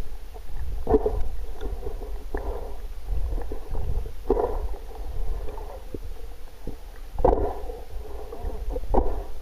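Muffled sound of water heard from underwater: a steady low rumble with gurgling surges every second or two and a few faint clicks.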